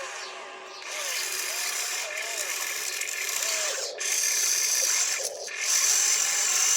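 Small electric motor and plastic gearbox of a toy RC construction vehicle whirring and grinding, stopping briefly twice, about four and five seconds in.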